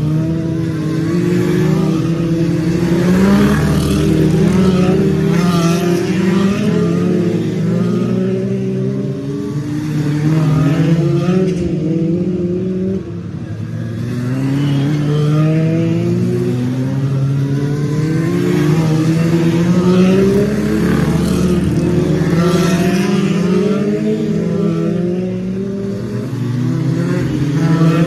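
Stock car engines racing hard around an oval, several cars at once, the engine pitch repeatedly rising and falling as cars accelerate past and back off for the bends.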